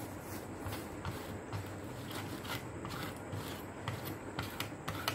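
Cloth rubbing and wiping over an LED panel on a metal plate, in a run of short, uneven scrubbing strokes that come faster near the end.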